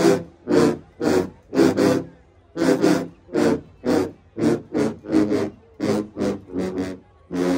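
A section of sousaphones playing together in short, punchy staccato blasts, about two a second with brief silences between them.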